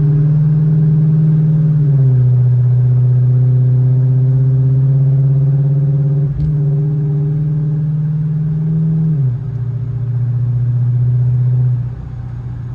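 A 2006 Dodge Charger's Hemi V8 running, loud and steady, its speed stepping down about two seconds in, back up about halfway, then down twice near the end. It runs with the cylinder 8 misfire cured by a replacement engine harness.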